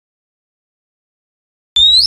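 Silence, then just at the end an oriental magpie-robin starts to sing: a clear whistled note rising in pitch, over a low steady hum.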